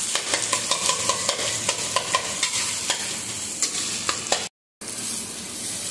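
Sliced onions sizzling in hot oil in a kadhai as they fry toward brown, stirred with a steel spoon that scrapes and clicks against the pan many times. The sound cuts out for a moment about four and a half seconds in.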